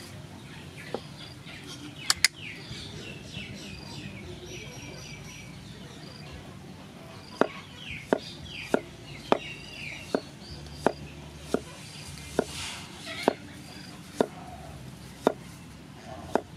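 A puppy chewing, with sharp crunching clicks about every two-thirds of a second from about seven seconds in. Small birds chirp in the background.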